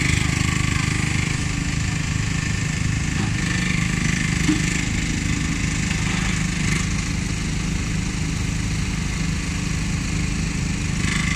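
Wolf WE26 mini excavator's diesel engine running steadily while the operator moves the arm and hydraulic thumb.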